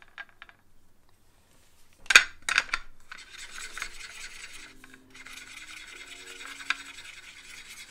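Posca paint marker tip tapped a few times, then rubbed and scraped around a well of an aluminium paint palette, putting paint out to mix; sharp clicks about two seconds in, then a steady scratchy rubbing.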